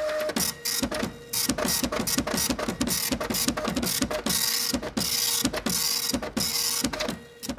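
Rapid mechanical clicking and whirring, several sharp clicks a second with short bursts of hiss between them, over a faint steady hum: a clattering machine-like sound effect laid over the stop-motion build of LEGO bricks.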